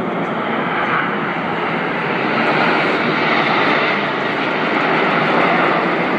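Formation of nine BAE Hawk T1 jet trainers, each with a single Adour turbofan, flying past overhead: a loud, steady rushing jet engine noise that grows slowly louder as the formation comes closer.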